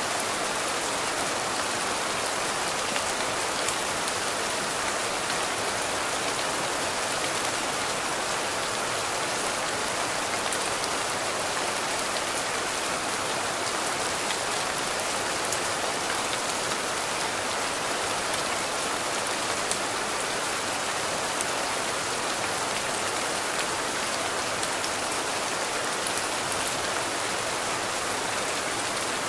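Steady rain falling: a dense, even hiss with faint scattered drop ticks.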